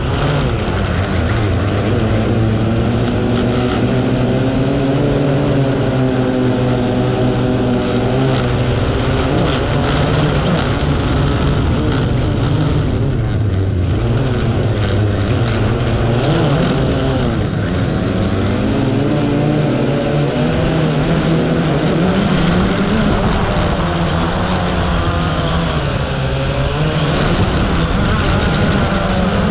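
Multirotor drone's motors and propellers buzzing steadily, their pitch wavering up and down as the drone manoeuvres and changes speed.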